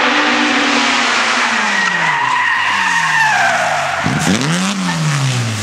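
Competition car skidding: a high tyre squeal sweeps up and falls away through the middle, while the engine revs drop, pick up briefly and drop again.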